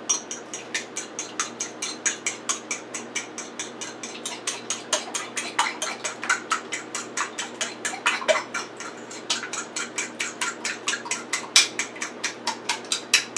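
Spoon beating eggs in a small bowl, clicking against the bowl's sides in a quick, even rhythm of about five strokes a second.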